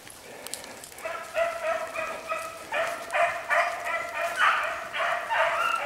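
A pack of hunting hounds baying in chorus while running a hare's scent trail, their voices starting about a second in and overlapping into a near-continuous, building cry.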